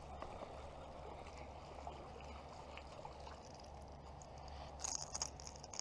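Small bass splashing at the surface as it is reeled in to the bank, with a few sharp splashes about five seconds in.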